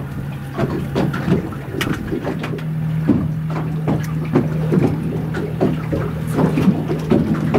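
Boat sitting on the water, with small waves knocking and splashing irregularly against its hull. Under them runs a steady low hum that steps up slightly in pitch a few seconds in.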